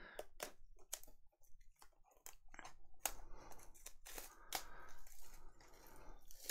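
Plastic shrink-wrap and cardboard of a sealed trading-card hobby box being torn open and handled: faint, irregular crackles, rustles and clicks.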